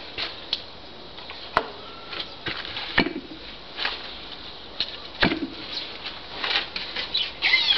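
Scattered sharp clicks and knocks as the propeller of a model-airplane glow engine is flicked over by hand during a break-in session; the engine does not catch. A brief rising whine comes near the end.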